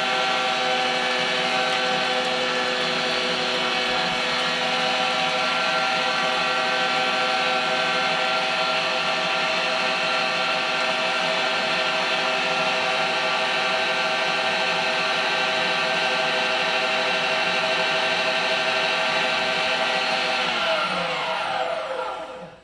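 Electric meat grinder motor running steadily under load as it grinds venison into burger. About twenty seconds in it is switched off, and its whine falls in pitch as it winds down to a stop.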